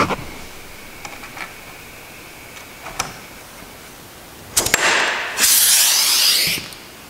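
A hand-held power rivet tool sets a blind (pop) rivet through an aluminium hinge into the rudder frame. There is a sharp click as it is put on the rivet. About four and a half seconds in come a few quick clicks, then a loud, hissing rush lasting about a second and a half that cuts off suddenly.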